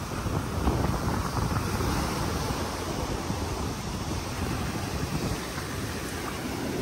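Ocean surf washing on a beach, with wind buffeting the microphone in low gusts.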